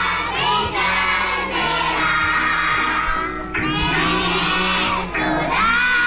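A group of young schoolchildren singing a Malay children's song together, with a backing music track underneath.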